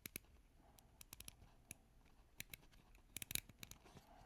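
Bi-directional rotating bezel of a vintage Seiko Turtle dive watch being turned: a string of faint, soft, muted clicks at an uneven pace, with a quick run of clicks a little past three seconds in. The bezel gasket has been replaced and greased.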